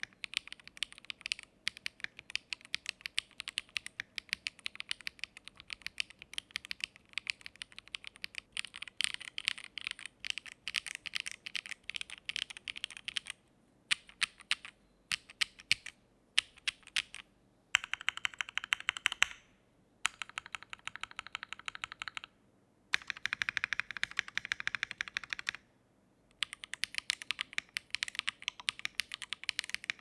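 Fast typing on a Keychron C3 Pro gasket-mount mechanical keyboard: dense runs of key clacks in stretches broken by brief pauses. The first part is on factory-lubed tactile Keychron K Pro Brown switches, and the last few seconds are on linear K Pro Red switches.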